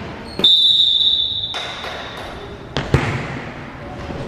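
Referee's whistle sounding the serve: one steady, high blast about a second long. About two seconds later comes one sharp slap of a hand striking the volleyball on the serve.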